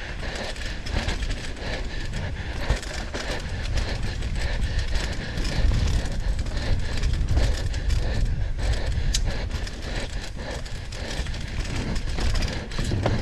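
Mountain bike descending a dirt trail: wind rumble on the microphone and tyre noise over the ground, with constant rattling clicks and knocks from the bike over bumps.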